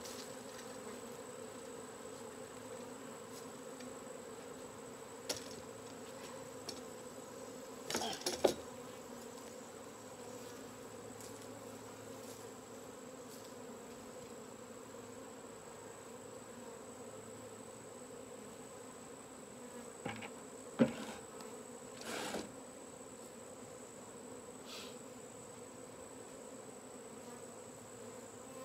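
A honeybee swarm buzzing in the air, a steady hum of many bees in flight. A few short knocks and rustles break in, around eight seconds in and again about twenty seconds in.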